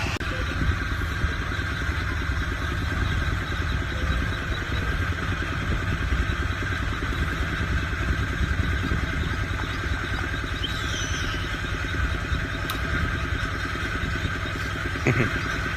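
A small engine running steadily, with a dense low rumble that holds unchanged throughout.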